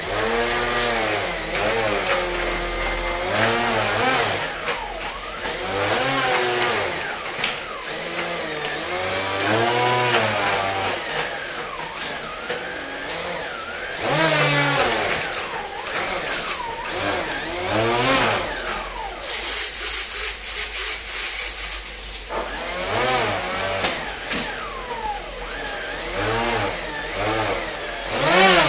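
Electric motor of an RC model F-15 jet, throttled up and down again and again, each run rising and then falling in pitch over a second or two, with a steady high whine underneath.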